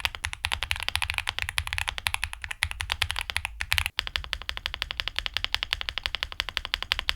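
Typing on an Akko SPR67 mechanical keyboard (aluminium, spring-mounted, FR4 plate) fitted with Akko V3 Cream Pro switches. The keystrokes are clicky and irregular for about four seconds, then stop briefly, then come back as a fast, even run.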